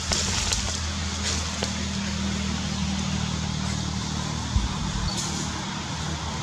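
Steady low engine hum, as of a motor vehicle running nearby, over an even outdoor hiss with a few light clicks. The hum breaks off with a low thump about four and a half seconds in.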